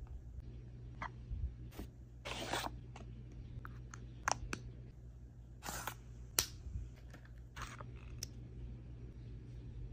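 Cosmetic packaging being handled: a paper shopping bag rustling and scattered clicks and taps of small plastic bottles and caps, over a low steady hum.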